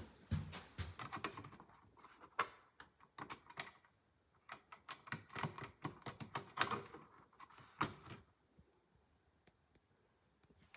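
Plastic buttons on a Honeywell Magic Stat wall thermostat being pressed and tapped: irregular light clicks, several a second, stopping about eight seconds in.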